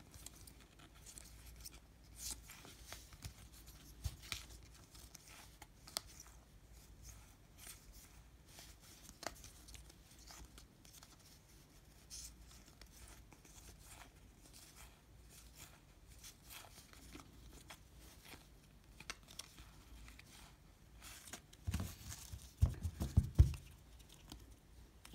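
Topps baseball cards being slid and flicked one at a time from hand to hand, a faint run of scattered ticks and papery rustles. Near the end a few louder knocks as the card stack is squared up.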